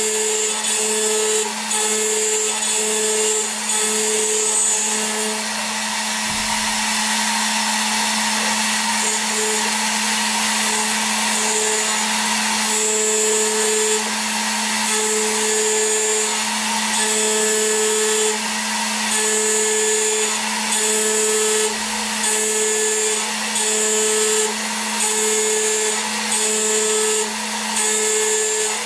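CNC milling-machine spindle running at 13,000 RPM with a steady hum while a 3 mm end mill makes a roughing pass in soft metal. The cutting noise and a high whine come and go about once a second as the tool passes back and forth.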